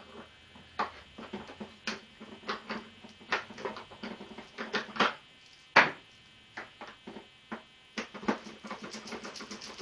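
Hand tools clicking and clinking against metal motorcycle fasteners and panels in irregular knocks, with one sharp knock a little before six seconds in. Near the end comes a fast, even run of socket-ratchet clicks.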